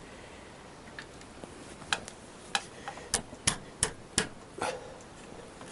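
A series of short, sharp metallic clicks, about eight in all, coming closer together in the middle, as a socket on a speed brace is fitted and turned on a bolt on a motorcycle engine.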